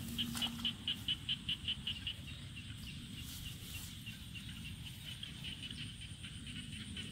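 A small animal calling: a quick, even series of high-pitched chirps, about five a second, for about two seconds, then fainter chirps that keep on.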